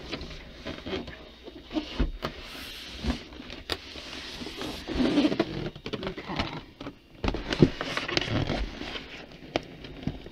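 Packaging being handled: a foam polystyrene insert scraped and pulled out of a cardboard box, with rubbing, rustling and irregular knocks, loudest about five seconds in and again a couple of seconds later.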